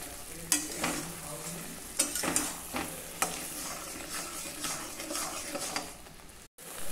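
A ladle stirring thick mustard greens in a pan, with irregular scrapes and knocks against the pan over a steady sizzle as the greens fry down in their oil.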